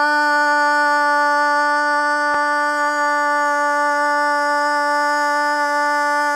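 A woman's voice holding a loud, sustained 'ah' vowel at one steady pitch: a projected 'ah' from a SPEAK OUT! speech-therapy exercise for Parkinson's, aiming for a clear rather than raspy tone.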